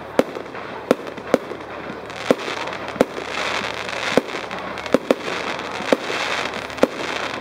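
Aerial fireworks firing in quick succession: a string of sharp bangs, roughly one every half second to a second, over a hissing crackle from the bursting stars that swells in the middle.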